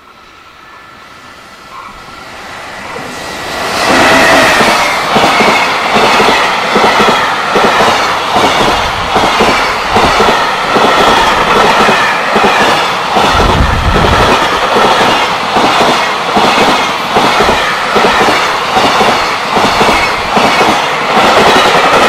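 A JR Freight container train approaching and then passing close by. The sound grows over the first few seconds, then becomes a loud, rhythmic clickety-clack of the container wagons' wheels over the rail joints.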